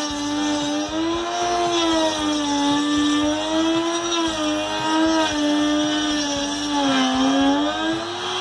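Small 530 W electric palm router (trim router) running at full speed while cutting a groove in a wooden board. Its high whine wavers in pitch as the bit takes the load, dipping lowest about seven seconds in.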